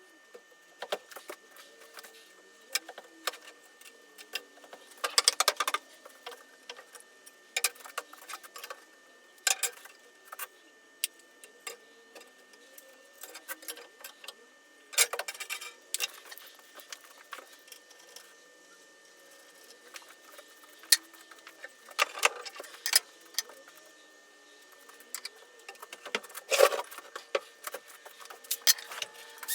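Scattered light clicks and taps at irregular intervals, with a few short scraping bursts: small handling and hand-tool noises.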